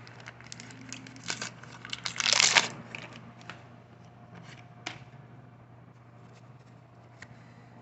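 Wax-paper wrapper of a 1984 Fleer baseball card pack crinkling and tearing open, loudest about two seconds in, followed by lighter clicks and rustles of the cards being handled.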